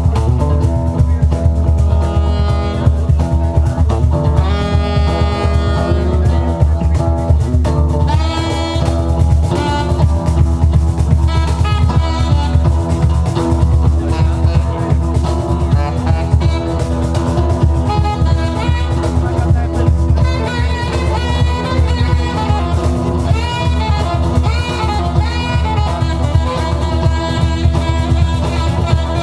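Georgian band playing live: a heavy, steady bass under a wavering lead melody that bends in pitch.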